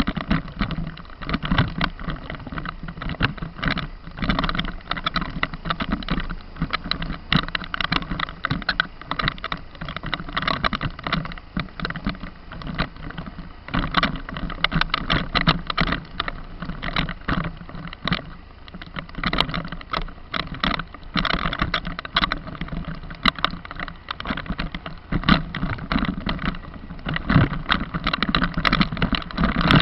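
A vehicle driving on an uneven forest road: a steady engine hum under frequent knocks and rattles from the jolting ride.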